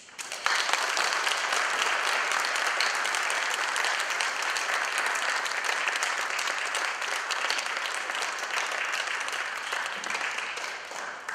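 Audience applauding: many people clapping at once, rising sharply just after the start, holding steady, then thinning out near the end.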